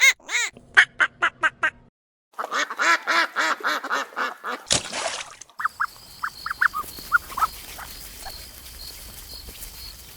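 Ducks quacking in quick runs of short calls, broken by a brief cut, then a quieter stretch of scattered short high chirps after about five and a half seconds.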